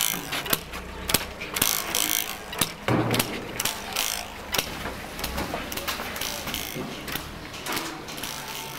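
Traditional cotton-carding bow being struck, its taut string snapping sharply about twice a second as it beats and fluffs loose cotton.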